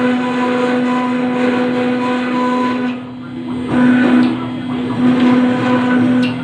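CNC router spindle running with a steady high whine while its bit engraves granite. About three seconds in the sound drops briefly, then comes back in uneven surges as the cut loads the spindle.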